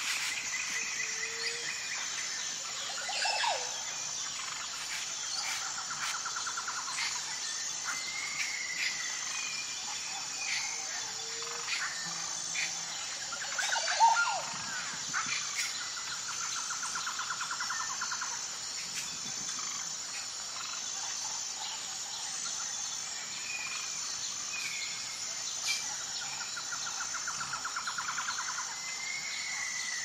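Birds calling over a steady, high-pitched chorus of insects: a rapid trill comes three times, with short whistles between and a sharp rising call about halfway through, the loudest sound.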